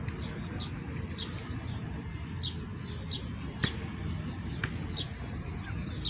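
Sparrows chirping: a steady run of short, falling chirps, about two a second, with one sharper click a little past halfway, over a steady low rumble.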